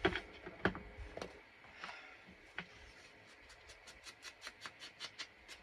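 Handling noises of paper crafting at a desk: a few sharp taps in the first second or so, then a quick run of small light clicks, about five a second, in the second half.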